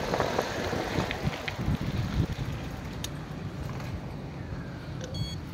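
Wind buffeting the microphone over the low rumble of a bicycle's tyres rolling on a concrete road, with a few light knocks from the bike.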